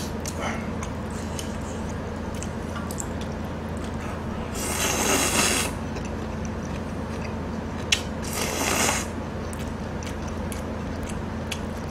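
Mukbang eating sounds close to the microphone: chewing with small clicks and taps of utensils and dishes, and two louder noisy rushes of about a second each, about four and a half and eight seconds in, with a sharp click just before the second. A steady low hum sits underneath.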